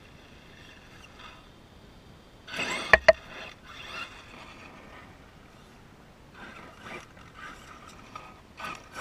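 Brushless electric RC monster truck (Traxxas E-Revo on a Mamba system) on asphalt: about two and a half seconds in, a burst of motor whine, then two sharp crashes close together as the truck tumbles. From about six seconds on come more short bursts of motor and scattered knocks, ending in a loud knock as the truck comes up against the camera.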